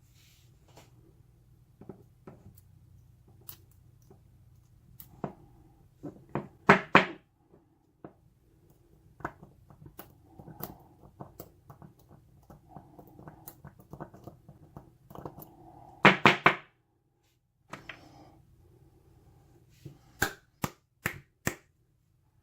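Light metal clicks and knocks from handling a Yale pin-tumbler lock cylinder and its tools, with louder thunks about a third and two-thirds of the way through and a quick run of four sharp clicks near the end. This is the work of trying to free a pin stuck in the first chamber.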